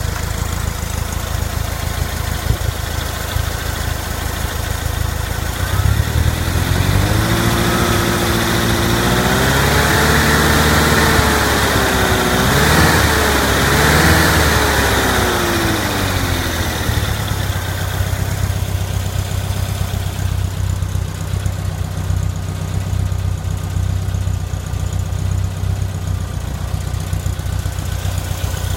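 Fuel-injected 2.0-litre VW Type 4 air-cooled flat-four idling, revved up once about six seconds in, held for several seconds, then let fall back to a steady idle.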